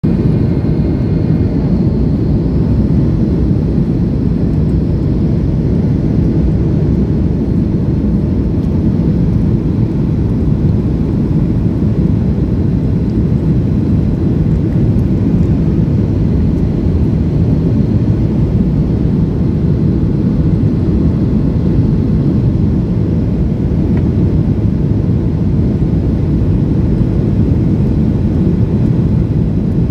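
Steady low cabin noise inside a Boeing 737 airliner on approach with flaps extended: engine and airflow noise heard from a window seat over the wing. A faint high tone fades out in the first couple of seconds.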